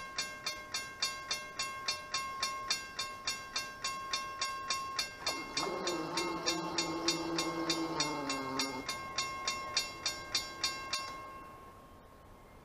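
Railroad grade-crossing bell ringing in quick, even strokes, about three a second, cutting off about 11 seconds in once the crossing gates are down. From about 5 to 9 seconds the approaching train's horn sounds over it in one long chord that dips in pitch at the end.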